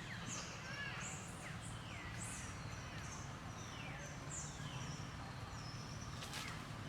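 Many short, high-pitched animal chirps in quick succession, several of them sliding down in pitch, over a steady low hum, with one sharp click near the end.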